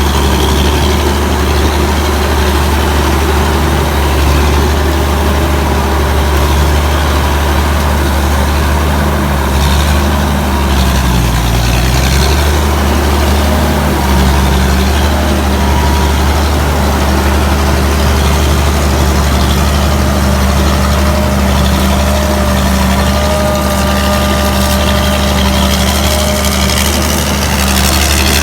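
Combine harvester's Hino J08C six-cylinder diesel engine running steadily, its pitch dipping briefly about halfway through and then recovering.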